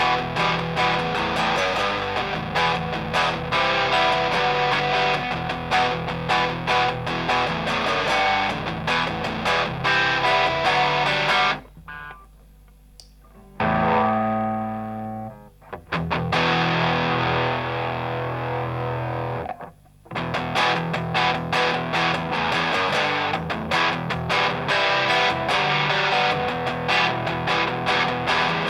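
Electric guitar played through a Grindcustoms Feng Drive overdrive pedal, giving an overdriven tone. Riffs and chords play continuously, with a short break about twelve seconds in, a single held chord, and another brief gap around twenty seconds in.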